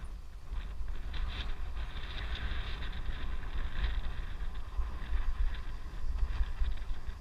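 Wind buffeting the microphone during a fast ride, a gusty low rumble with a haze of rattling road noise over it.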